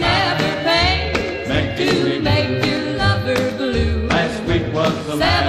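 Soundtrack music: a sung pop song with a steady beat.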